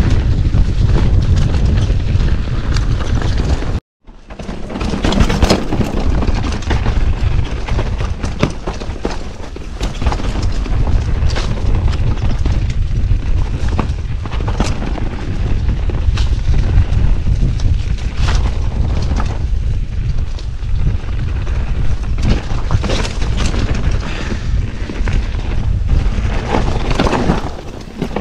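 Mountain bike riding down a rough dirt trail, heard on an action camera: heavy wind buffeting on the microphone with frequent knocks and rattles from the bike over roots and rocks. The sound cuts out for a moment about four seconds in.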